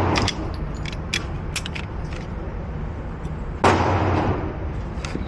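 Glock pistol firing two shots about three and a half seconds apart, one as it begins and one about two-thirds of the way in, each with a short echoing tail. Light clicks come between the shots.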